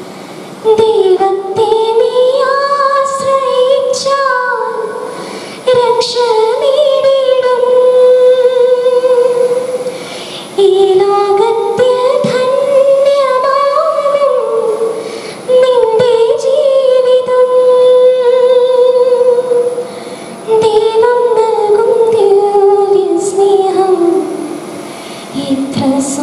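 A young woman singing a Malayalam devotional song unaccompanied, in five slow phrases of long held notes with short breaths between them.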